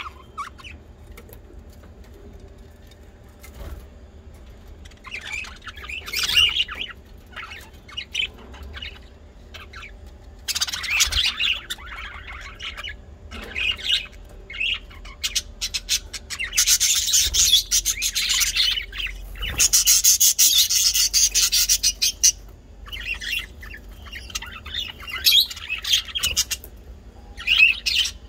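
Bird chirping in repeated bursts, with a long, rapid run of calls about two-thirds of the way through, over a faint steady hum.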